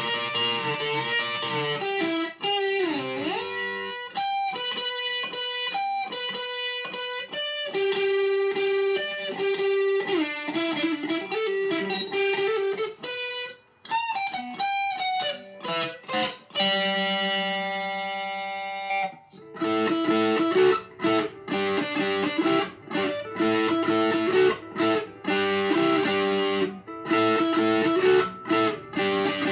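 Electric guitar with big single-coil pickups, played through an amplifier and picked up by an SM57 microphone. It plays single-note lines with a string bend early on and lets one note ring for a couple of seconds just past the middle. After that it plays faster, choppier riffs with light overdrive.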